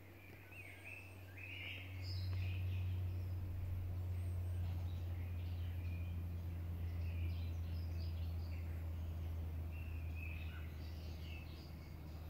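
Birds chirping on and off over a steady low hum, which grows louder about two seconds in.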